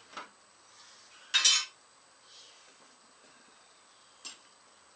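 Metal hand tools clinking and clattering as they are rummaged through: a small clink at the start, one loud clatter about a second and a half in, and a single sharp clink near the end.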